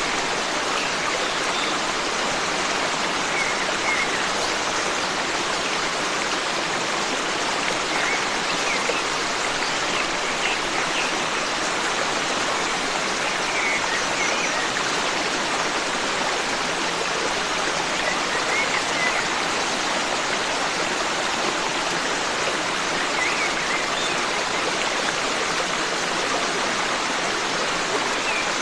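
Forest stream running steadily, a continuous rush of water, with faint short bird chirps now and then.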